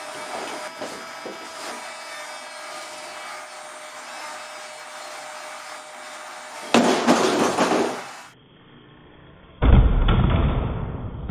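3D-printed Su-X RC model jet dropped from 20 cm onto a table in a landing-gear drop test: a loud clattering impact of the airframe and gear about seven seconds in. Near the end comes a heavy, low, rumbling thud.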